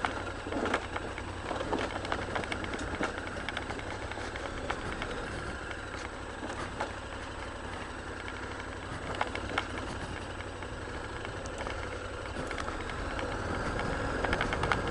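Big KTM adventure motorcycle's engine running low and steady, near idle, as the bike rolls down a rocky, loose descent, with scattered clicks and knocks throughout.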